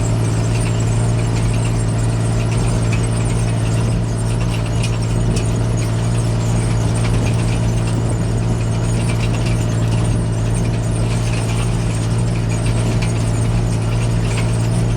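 John Deere 8410 tractor's six-cylinder diesel running at a steady speed, a deep even drone, with light metallic rattling and squeaking over it.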